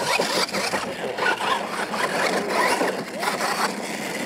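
R/C monster truck driving fast across a hard dirt course: a steady motor-and-gear whir mixed with the scrabbling clicks of tyres and loose grit.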